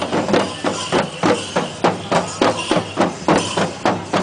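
Chenda drums beating a steady, driving rhythm of about three strokes a second for a Thira ritual dance, with crowd voices underneath.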